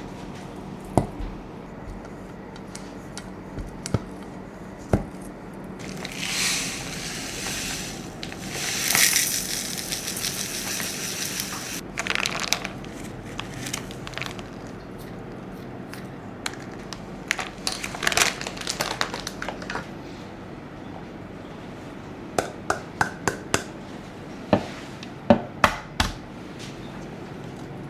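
Kitchen food-preparation sounds: scattered clicks and knocks of utensils and food being handled. There are two longer hissing, crinkling passages in the first half and a quick run of taps near the end.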